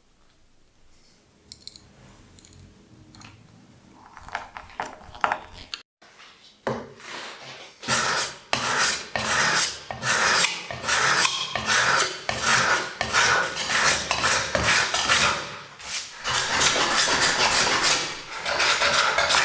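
A hand-held edge tool shaving olive wood, scraping strokes repeated about twice a second that lift chips from the hollow of a small plate. The strokes start after a quiet opening with a few faint ticks.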